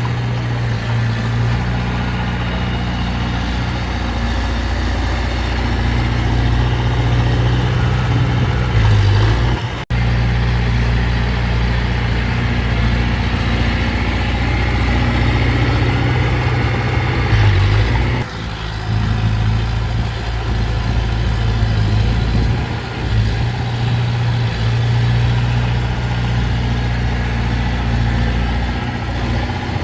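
Heavy diesel earthmoving machinery running steadily with a low engine hum. The sound breaks off for an instant about ten seconds in and changes abruptly at about eighteen seconds.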